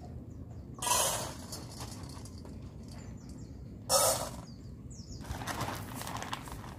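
Dry dog kibble poured in two short rattling rushes about three seconds apart, then a longer, softer pour near the end. Faint bird chirps can be heard in the background.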